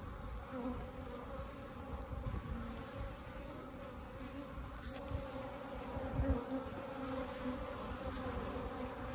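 Steady buzzing hum of a disturbed colony of Africanized honey bees swarming around an opened hive, with a few soft knocks of handling.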